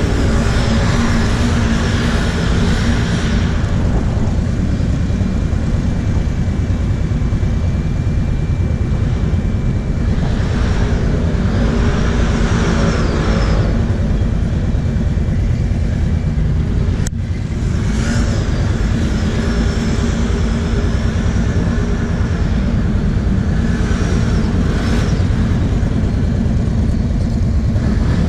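Kawasaki KFX 700 V-Force quad's V-twin engine idling steadily close by, with swells of more distant engine noise now and then. There is one sharp click about seventeen seconds in.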